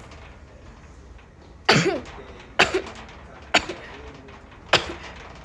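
A woman sneezing four times in a row, roughly a second apart, each a sharp sudden burst.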